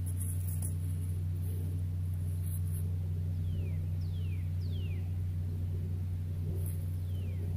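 A steady low hum, with short descending whistles from a bird: a run of three about halfway through and another starting near the end.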